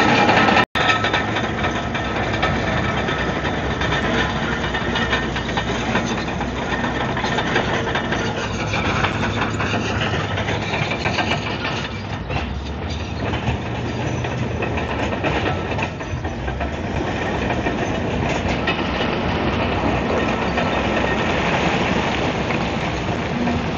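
Komatsu D155AX-7 crawler bulldozer working: its six-cylinder diesel engine runs steadily under load while the steel tracks clank and rattle. The sound cuts out for an instant near the start.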